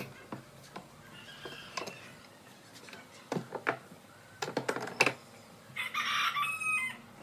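Steel pipe clamps being loosened and lifted off a glued-up wooden panel: a run of metal clanks and knocks, loudest about three and a half to five seconds in. About six seconds in comes a harsher sound lasting about a second.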